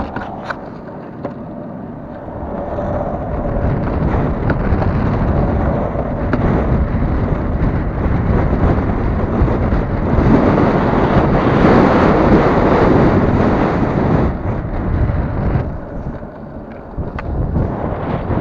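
Wind buffeting the microphone of an action camera on a longboard sailing rig, mixed with the longboard's wheels rolling over asphalt. The rush swells louder from about ten seconds in to about fourteen, with a few sharp clicks scattered through it.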